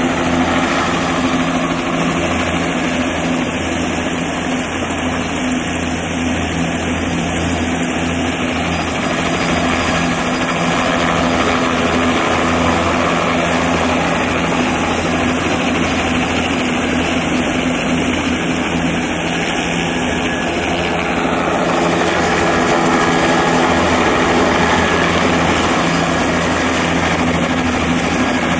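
Bell 206B JetRanger helicopter flying low and close: the steady chop of its two-bladed main rotor over the high whine of its turbine engine, swelling a little louder past the middle.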